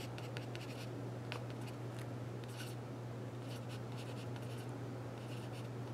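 Marker pen scratching out handwriting in short strokes on a white plastic plant label. A steady low hum runs underneath.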